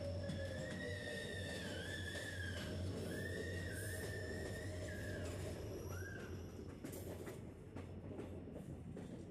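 Passenger train running on a curve: steady rumble of the coaches under a high, wavering squeal of the wheels on the rails lasting about five seconds, with one short squeal after it. Near the end, sharp clicks of the wheels over the rails.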